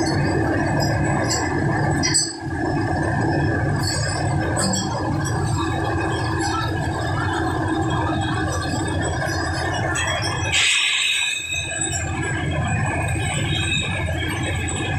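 Empty glass bottles clinking against one another as they crowd along a factory conveyor, with scattered sharp clinks over a steady mechanical hum and a constant high whine from the conveyor machinery.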